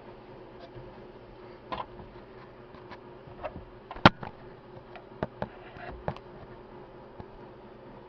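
A few scattered clicks and light knocks of a hand tool working at a steering column, the sharpest about four seconds in, over a faint steady hum.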